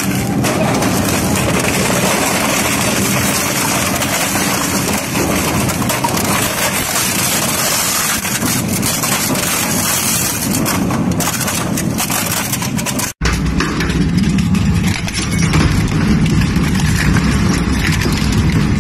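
Industrial shredder running and shredding scrap: a loud, continuous grinding noise over a low machine rumble. It breaks off for an instant about thirteen seconds in, then carries on with a deeper rumble.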